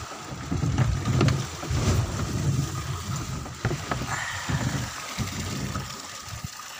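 Low, uneven rumble and buffeting of a small fishing boat riding a rough swell in rain, with wind and a few short knocks.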